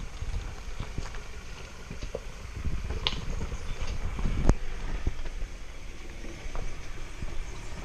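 A pickup truck crawling down a rocky off-road track: a low engine rumble mixed with wind on the microphone. Small clicks run through it, and there is one sharp knock about four and a half seconds in.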